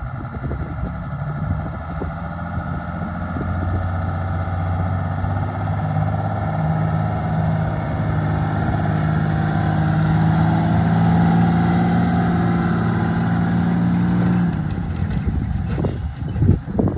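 1981 Ford 9000 tandem-axle grain truck's diesel engine running as the truck drives past, its note building steadily and then dropping about fourteen seconds in. Wind buffets the microphone near the end.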